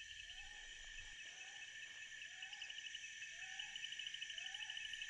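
Faint night-time forest chorus: insects keep up a steady high-pitched buzz with a pulsing trill, while a short rising-then-falling call repeats about once a second.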